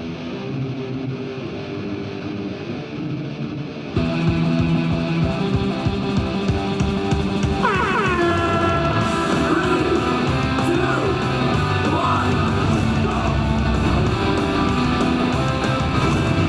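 Rock music with guitar, growing louder and fuller with a heavy beat about four seconds in, with a sliding guitar-like pitch sweep around eight seconds.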